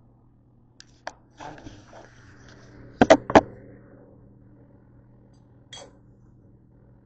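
A metal fork clinking against a cooking pan: a few light clicks and knocks, then three sharp ringing clinks close together just past the middle, and one more click near the end, over a low steady hum.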